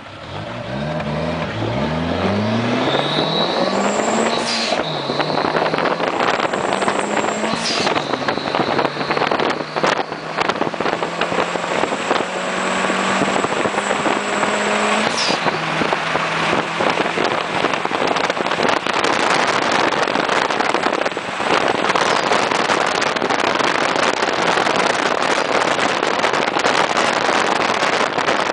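Inside the cabin of a turbocharged VW Gol 1.0 8V four-cylinder, accelerating hard through the gears: the engine note climbs and drops back at each upshift, with a high thin whistle riding over it. From about halfway on, the engine note is buried in a steady rush of wind and road noise at speed.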